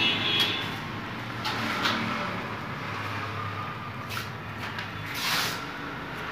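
Steady background traffic noise, with a few short hissing sounds, the loudest about five seconds in.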